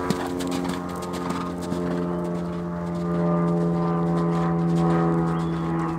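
A steady engine drone with a slowly shifting pitch, over the hoofbeats of a horse cantering on soft arena footing just after clearing a jump.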